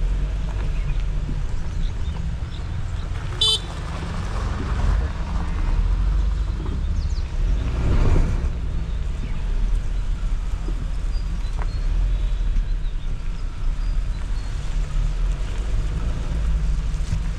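Suzuki Jimny driving off-road with a steady low engine and road rumble. A short high beep sounds about three and a half seconds in, and a brief rushing swell comes about eight seconds in.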